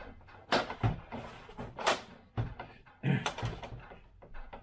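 3D-printed plastic model-aircraft parts being slid and pushed together by hand: three sharp plastic clicks or knocks with light scraping between them.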